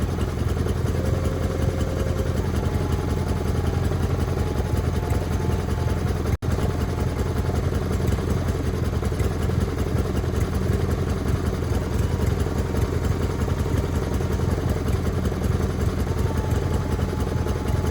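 Wood-Mizer LT40 band sawmill running steadily, its engine drone carrying a faint wavering whine above it, with a momentary gap about six seconds in.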